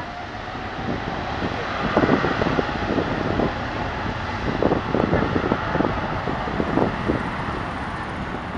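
Boeing 777-300ER's GE90-115B jet engines at takeoff power on the takeoff roll, heard from a distance. The engine noise swells about a second in and stays loud and uneven, with wind buffeting the microphone.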